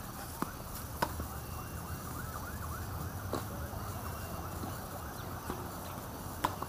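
Tennis balls struck by rackets and bouncing on a hard court during a rally: four sharp pops at uneven gaps, the first two close together near the start and the last near the end, over a steady low background hum.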